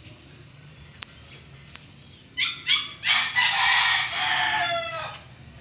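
A rooster crowing: two short notes, then a long held note that falls in pitch at the end.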